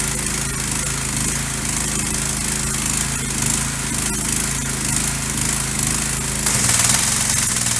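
Pressure washer's small single-cylinder gas engine running steadily just after a reluctant start. About six and a half seconds in the sound gets louder, the engine note changes and a hiss grows stronger.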